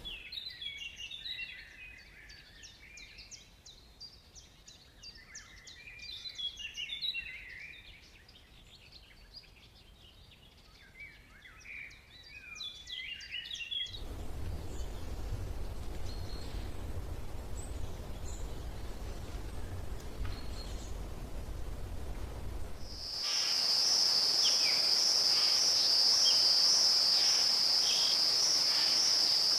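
Many birds chirping and twittering in quick calls, then a steady low rumble with faint calls over it, and from near the end a loud, steady, high-pitched insect drone with birds still chirping.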